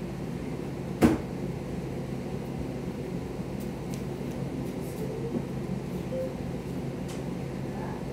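Steady hum of a window air conditioner running, with a single sharp knock about a second in.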